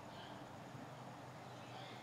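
Faint outdoor background: a steady low hum with two short, high chirps about a second and a half apart.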